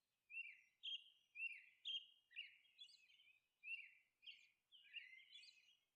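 Faint bird chirping: short, high chirps that dip in pitch, about two a second, pausing briefly around the middle.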